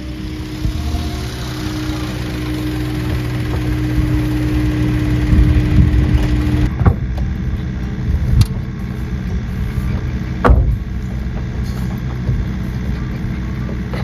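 Mini excavator engine running under load with a steady whine, growing louder. After a sudden cut about seven seconds in, a steady low engine hum continues, broken by three sharp knocks.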